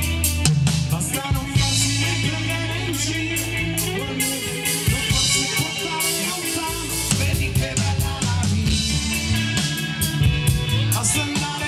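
Live band playing amplified: a drum kit keeps a steady beat under electric bass and electric guitars.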